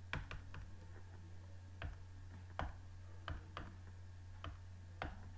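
Computer mouse clicking: about nine sharp, scattered clicks as PDF tabs and pages are switched, over a steady low hum.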